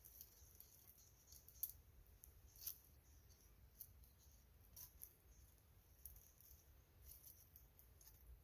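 Faint, scattered ticks and crackles of dry wood: a small young campfire of twigs and split sticks crackling as more sticks are laid onto it.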